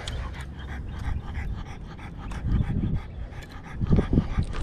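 French bulldog panting in quick, even breaths, over a low rumble of wind on the microphone.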